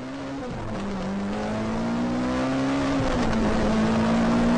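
Race-car engine accelerating, its pitch climbing and dropping back twice, about half a second and three seconds in, as if shifting gears, while it grows steadily louder.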